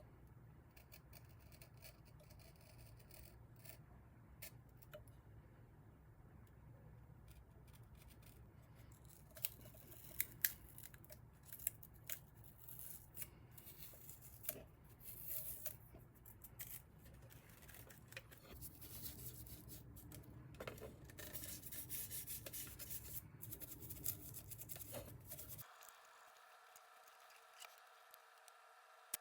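Faint scratchy rubbing and small sharp clicks of close-up hand work on a small plastic object, over a low steady hum. The work sounds begin several seconds in and come in irregular bursts. Near the end the hum stops abruptly.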